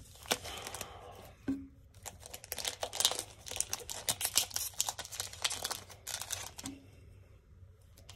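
Hockey card pack wrapper being torn open and crinkled by hand, a dense run of crackles with a short pause about a second and a half in. It turns to softer rustling of the cards near the end.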